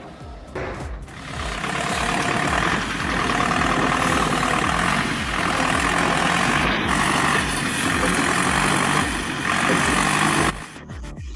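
Heavy machinery running hard under load, with a loud, harsh grinding noise that swells in over the first two seconds and cuts off suddenly near the end.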